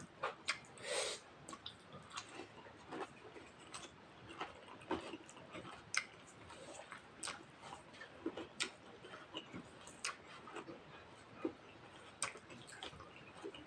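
Close-miked eating sounds of someone chewing rice and mutton curry: irregular small wet clicks and smacks of the mouth, with a longer noisy sound about a second in.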